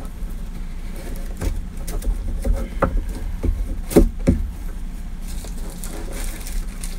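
Cardboard shipping box being handled and opened by hand: a string of short knocks and scrapes of cardboard, the loudest about four seconds in, over a steady low hum.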